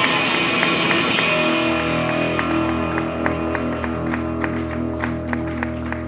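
Live rock band music: an electric guitar chord struck hard at the start and left ringing, joined by a steady held chord from the band. Claps or clicks keep time about three times a second over it.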